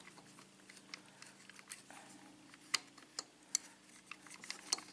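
Lock pick working the pins of a Sargent pin-tumbler lock under light tension: faint, irregular clicks and ticks, the sharpest about halfway through and again near the end, over a low steady hum.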